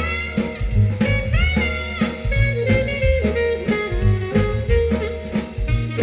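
Recorded music played over Marten loudspeakers: an instrumental jazz-blues passage with a bass line, a drum kit striking about twice a second, and a lead line that slides up into its notes twice.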